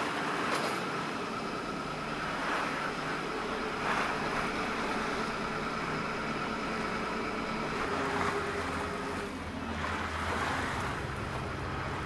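Water rushing and splashing against a Venice vaporetto under way, over the steady hum of its engine, with wind on the microphone.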